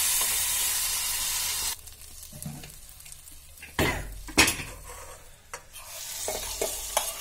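Onion-tomato tadka sizzling in a kadai as it is stirred with a metal spatula. The sizzle cuts off suddenly a couple of seconds in. After that come scattered metal clanks and scrapes, the loudest about halfway through, as the pan is gripped with tongs and tipped over the pressure cooker.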